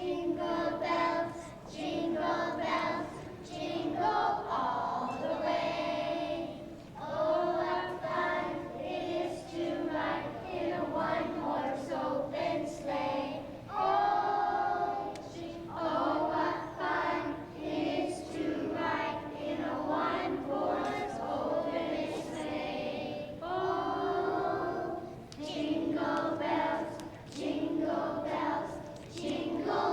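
Choir of young children singing together in held, phrased lines.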